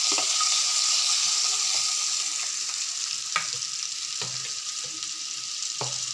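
Oil sizzling in a pan of tempering: dried red chillies, crushed garlic, mustard seeds, cumin, chana dal and curry leaves frying. It is stirred with a spatula at first, and the sizzle slowly dies down. A few light knocks sound in the second half.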